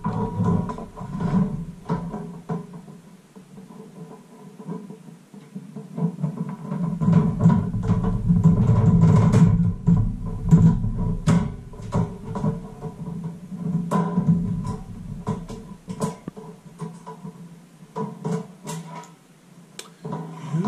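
Background music throughout, with scattered short clicks and knocks.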